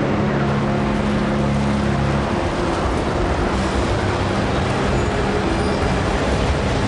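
Film soundtrack of a storm: steady noise of wind and heavy rain with a vehicle engine running. A low steady hum underneath stops about two seconds in.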